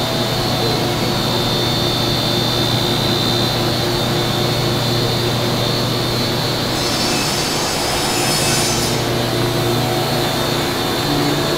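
CNC mill running steadily as it cuts ukulele necks: a high whine over a low hum and hiss, with the hiss changing about seven seconds in.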